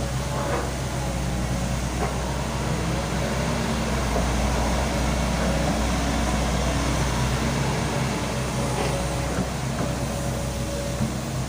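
Volvo excavator's diesel engine running steadily under work, with a few faint, short squeals late on.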